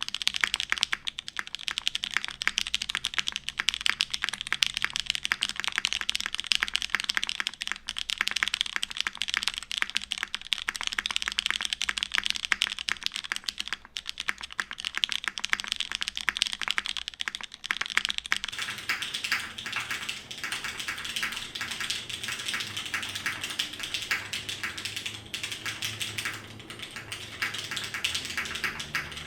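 Continuous fast typing on a custom mechanical keyboard with Cherry MX Black linear switches lubed with 205g0, mounted on an aluminum plate, with DCS-profile keycaps: a dense, unbroken stream of keystroke clacks.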